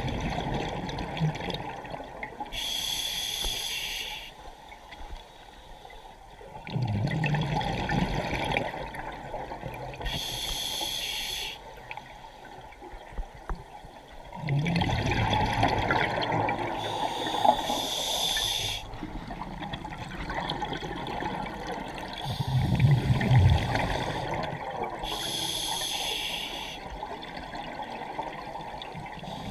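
Scuba diver breathing through a regulator underwater. Each breath is a rumbling burst of exhaust bubbles followed by a hissing inhale through the demand valve, about every seven or eight seconds, four breaths in all.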